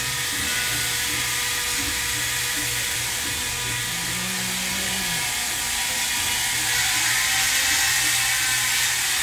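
Steady running noise of machinery in an engine machine shop: a constant low hum with a few steady tones under a strong high hiss, getting a little louder near the end.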